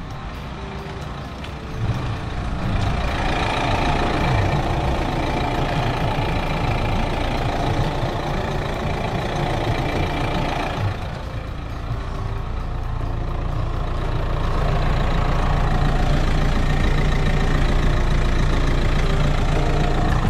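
Renault Megane's 1.5 dCi four-cylinder diesel engine running, heard from close beneath the car. It is a steady low drone that grows louder about two-thirds of the way in.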